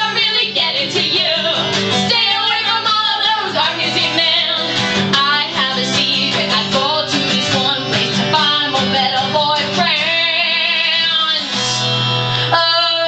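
A song playing: guitar with a singing voice over a steady band backing.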